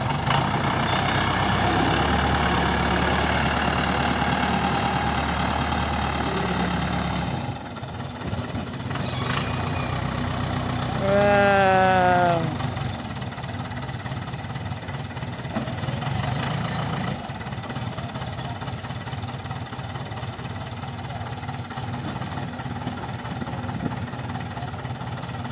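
Backhoe engine running steadily, louder for the first seven seconds or so and then settling lower, with a short whine that falls in pitch about halfway through.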